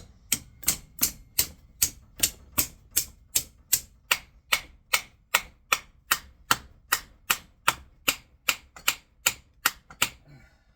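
Hammer blows on metal, about three a second, evenly paced, stopping near the end: pecking on the stuck armature shaft of a gear-reduction motor to drive it out of the housing.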